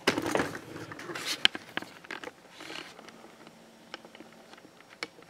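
Handling noise from the camera being carried in close to the saw table: scattered knocks, clicks and rustles, busiest in the first couple of seconds and then sparse.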